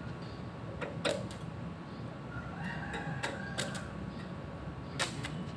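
Irregular sharp clicks and knocks, about eight, coming in small clusters roughly a second in, around three seconds in, and near the end, over a steady low hum.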